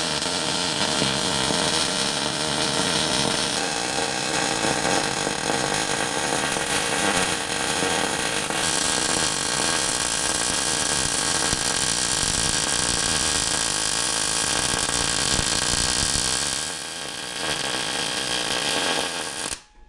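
Angle grinder running continuously against steel tubing with a steady motor whine and grinding hiss. It eases off briefly near the end and then cuts out.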